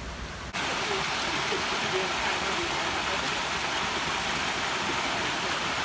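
Steady rush of falling water from a waterfall, starting suddenly about half a second in.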